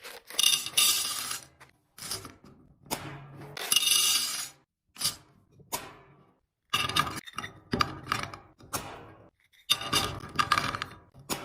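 Containers being put into a refrigerator: a series of separate clinks, knocks and scrapes as items are set down and slid onto the shelves, with short pauses between them.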